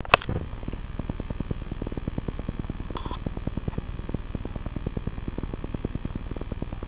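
Small desk fan running, heard as a steady low pulsing about ten times a second. A sharp click comes right at the start.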